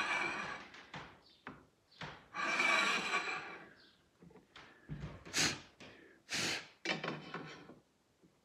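Workbench handling sounds: two longer scraping slides, then several short knocks and clatters about five to seven seconds in.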